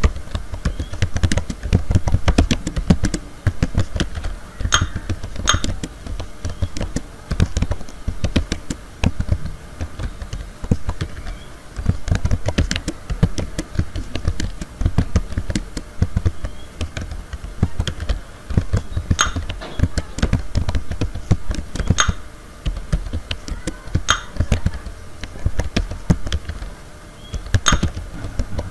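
Computer keyboard being typed on continuously through a touch-typing sentence drill: a fast, uneven run of key clicks and dull thumps, with a sharper, brighter click standing out every few seconds.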